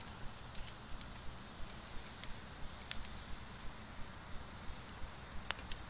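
Burning charcoal embers crackling, with irregular sharp pops and ticks over a faint steady hiss; the loudest pop comes near the end.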